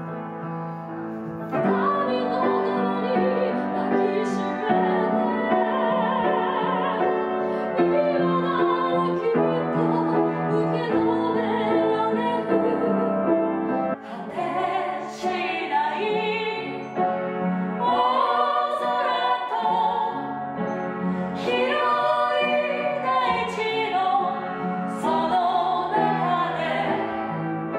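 Upright piano being played. About 14 s in it switches abruptly to two women singing in an operatic style with strong vibrato, with piano behind them.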